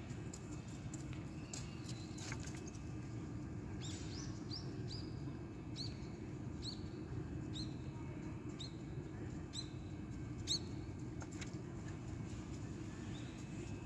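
A bird calling: a run of short, high, falling chirps, roughly one a second, starting about four seconds in and ending about ten seconds in, over a steady low rumble.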